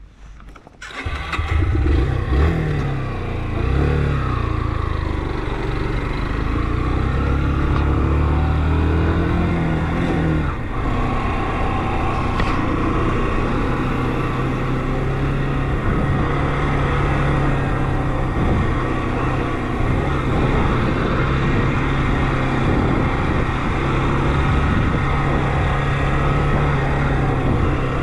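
Motorcycle engine coming in about a second in, its revs rising and falling several times as it pulls away, then settling into a steady cruise over a constant rush of noise.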